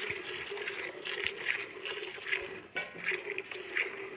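Hand milking: streams of milk squirting into a pail in a steady rhythm, about two to three squirts a second, over a steady hum.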